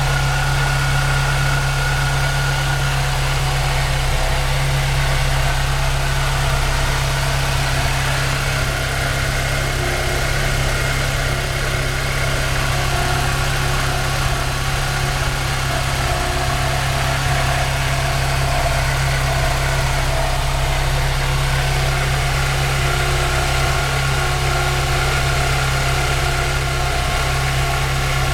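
The four-cylinder engine of a 2008 Mazda MX-5 fitted with a Cosworth supercharger, idling steadily.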